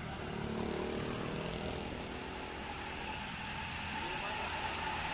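Intercity coach bus engine pulling up a hill toward the listener, growing louder, with motorcycles and other road traffic passing.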